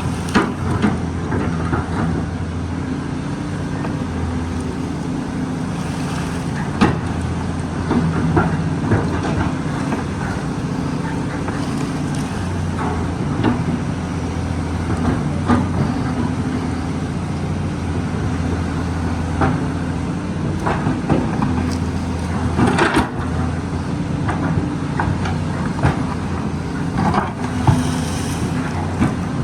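Excavator's diesel engine running steadily under load, with frequent short knocks and cracks from the machine at work, a loud cluster about 23 seconds in.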